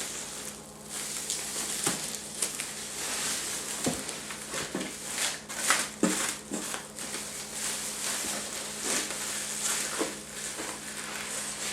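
Packing being handled as a boxed computer monitor is pulled out: irregular crackling, rustling and scraping of styrofoam and plastic with scattered light knocks, over a faint steady low hum.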